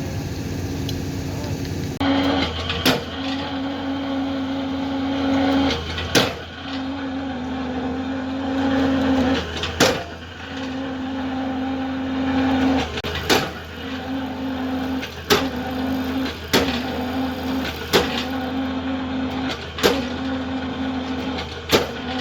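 Excavator running: a steady engine drone with a hydraulic whine that comes and goes in stretches of a second or more, and sharp metallic knocks every two seconds or so.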